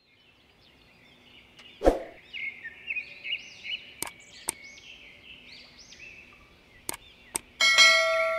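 Birds chirping in a repeated pattern of short rising-and-falling calls. Over them come several sharp mouse-click sound effects and, near the end, a ringing notification-bell ding, from a subscribe-button animation.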